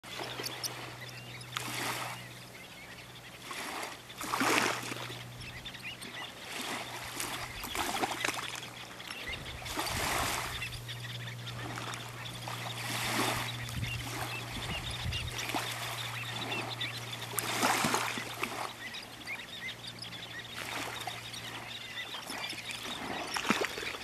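A mixed flock of sanderlings, dunlin, white-rumped and semipalmated sandpipers calling excitedly with many short, high chirps while feeding. Small waves wash up on the sand beach every few seconds.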